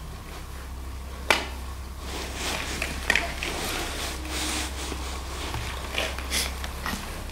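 A single sharp knock about a second in, then scattered crackling and rustling over a steady low hum.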